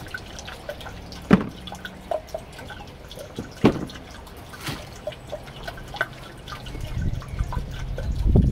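Handling of a cardboard shoe box and a leather trainer: two sharp knocks, as the box is closed and the shoe set down on its lid, among small scattered taps and clicks. A low rumble builds near the end.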